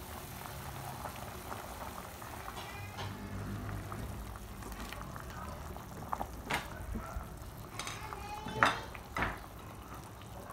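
Pot of soup simmering with a steady bubbling hiss. From about six seconds in come a few sharp knocks as sliced mushrooms go into the pot; the loudest is near the end.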